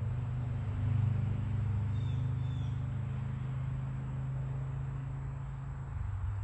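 Steady low motor hum, like an idling engine or running machinery, with a brief high bird chirp about two seconds in.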